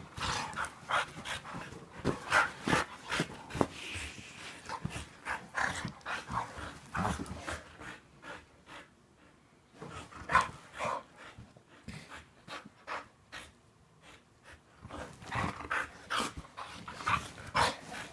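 A blue-nosed pit bull and a husky play-fighting up close: irregular panting and mouth noises with scuffling on the bedding. It goes quieter for several seconds in the middle, broken by one sharp click, then busier again near the end.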